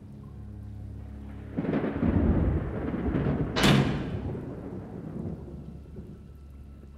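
Thunder rumbling over a held orchestral score. About halfway through, a single sharp crack rings out and fades: a rock striking the sewer pipe in time with the thunderclap.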